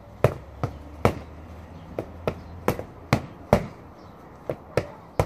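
Boxing gloves smacking into focus mitts during pad work: about ten sharp slaps in quick, irregular combinations.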